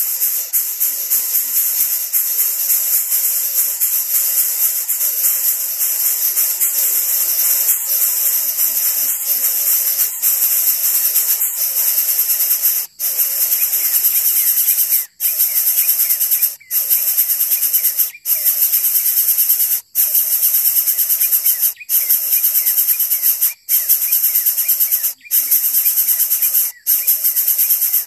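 Insects droning in a loud, high, hissing buzz; from about halfway through, the drone cuts out briefly at regular intervals, roughly every second and a half.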